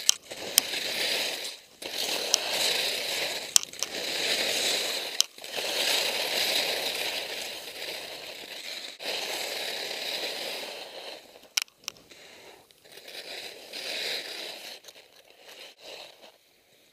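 Skis scraping and hissing over snow through a series of turns on a steep slope. The sound comes in surges with short breaks, with a few sharp clicks, and grows fainter near the end.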